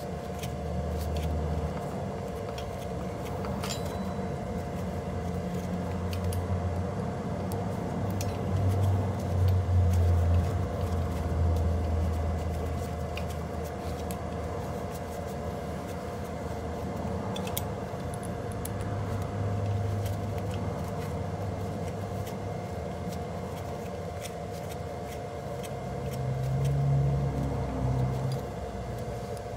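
Light metal clicks now and then from a 4 mm Allen wrench and screws as the screws of a 160 mm brake rotor are threaded into an electric scooter's front hub. Beneath them runs a steady two-note hum and a low rumble that swells and fades, loudest about ten seconds in and again near the end.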